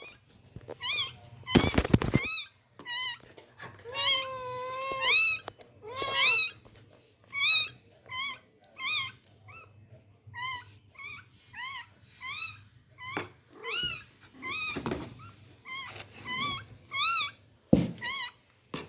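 A newborn pet's high-pitched cries, short and arching, repeated about one to two a second, with a longer, lower cry about four seconds in. Two thumps, about two seconds in and near the end.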